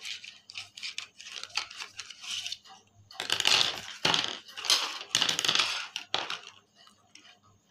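A bunch of wooden coloured pencils clicking and clattering against one another as they are handled and set down beside a notebook. Light clicks come first, then louder rattling bursts from about three seconds in.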